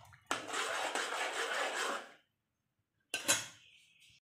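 Cooking noise from a pan of tomato gravy: a rasping scrape lasting about two seconds, then it cuts off to silence, and a second short scrape comes near the end.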